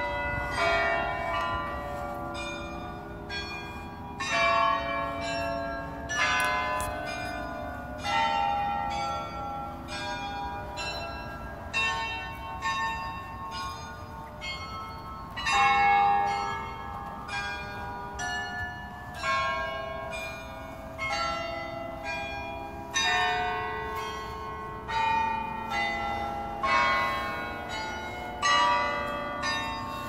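Church tower carillon playing a slow tune on the hour: single bells struck one after another at different pitches, about two notes a second, each ringing on into the next.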